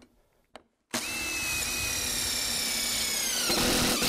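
Cordless DeWalt drill-driver driving a screw through a metal rafter hanger into a pergola box beam. It starts about a second in with a steady motor whine, and the pitch sags a little near the end as the screw draws tight.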